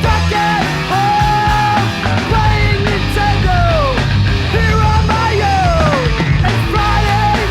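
Thrashcore song: loud, dense distorted guitar, bass and drums, with yelled vocals and sliding, falling pitches over the top.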